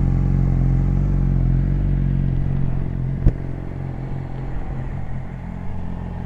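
Yamaha R6's inline-four engine idling steadily while warming up, heard at the exhaust. A single sharp click comes about three seconds in, after which it sounds a little quieter.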